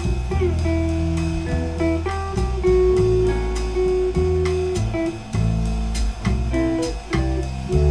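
Jazz guitar music: a guitar plays a single-note melody with a few sliding notes over a low bass line.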